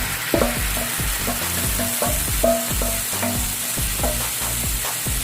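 Chicken marinade sizzling as it is sautéed in a hot pan, with a utensil stirring and scraping against the pan in repeated strokes.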